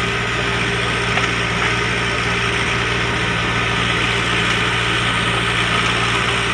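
Heavy diesel engine idling steadily, a low even drone with no change in speed.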